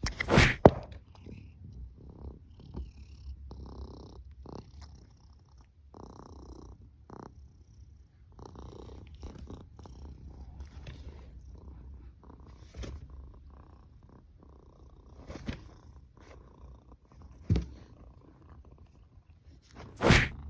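Domestic cat purring steadily, a low continuous rumble, broken by a few sudden loud knocks or rustles, the loudest near the start and near the end.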